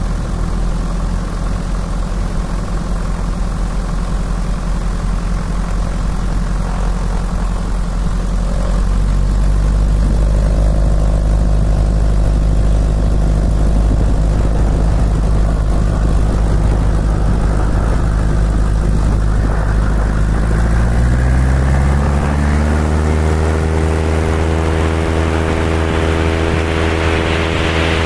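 A Piper Super Cub on amphibious floats: its flat-four piston engine and propeller run steadily at low taxi power, then about twenty seconds in the pitch climbs as the throttle opens to full power for the takeoff roll. A rush of air grows as the plane gathers speed.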